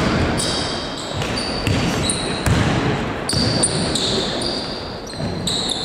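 Basketball play on a gym floor: a ball bouncing with repeated low thuds and sneakers giving short high-pitched squeaks on the court.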